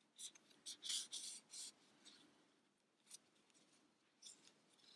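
Soft scratchy rubbing of a tapestry needle and yarn being drawn through crocheted stitches as fingers handle the small crocheted toy: a quick run of short rubs in the first two seconds, then a few more near the end.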